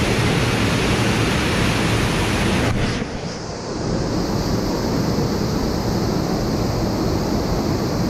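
Steady, loud rush of water cascading down a narrow rock chute, a small waterfall. About three seconds in it turns duller, losing its hiss.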